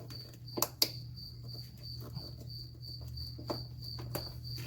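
Crickets chirping, a high, evenly repeating pulse that runs steadily, over a low steady hum. Two sharp clicks come about half a second and just under a second in.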